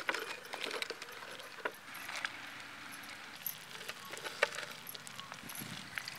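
Fingers scraping and picking dried mace blades out of a small terracotta bowl: light scattered clicks and dry crackles of the spice against the clay, with a few sharper taps.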